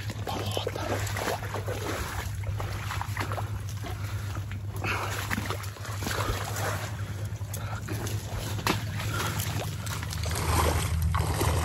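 Water splashing and sloshing in irregular strokes over a steady low hum.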